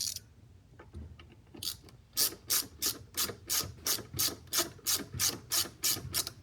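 Hand ratchet with a Torx bit backing out the seatbelt pretensioner's anchor bolt: a few light clicks, then from about two seconds in a steady series of short rasping ratchet strokes, about three a second.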